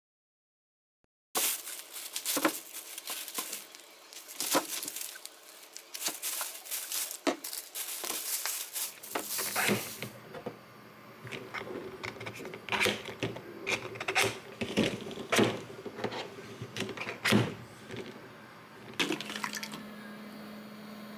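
Eggs clicking and knocking against a plastic penguin-shaped egg holder as they are loaded into it and set in a steel pot of water, a string of sharp clicks starting after a brief silence. A steady low hum starts near the end.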